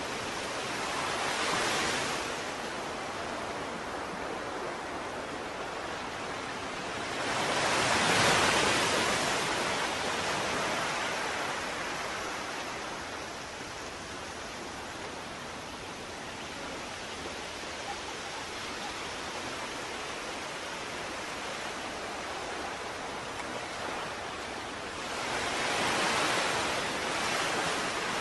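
Ocean surf: a steady rush of water that swells as waves break, once about two seconds in, most strongly around eight seconds in, and again near the end.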